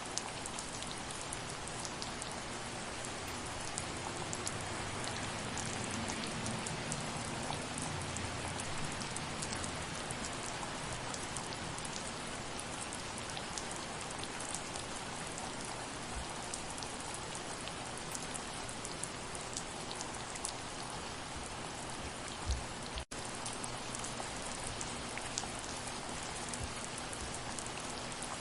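Steady, soft rain falling, with individual drops ticking through the hiss. A single brief low thump about three quarters of the way through is followed by a split-second gap in the sound.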